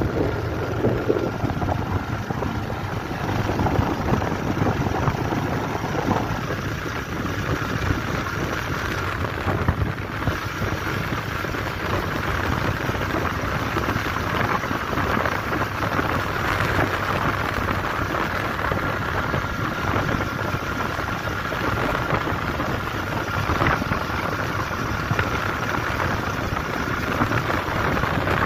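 Steady rush of wind and tyre noise from a vehicle travelling at speed on a highway, with a faint high whine that comes and goes.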